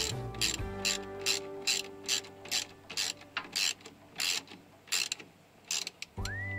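Ratchet wrench clicking as a nut on a 12-volt battery terminal is tightened, about two sharp clicks a second, spacing out toward the end.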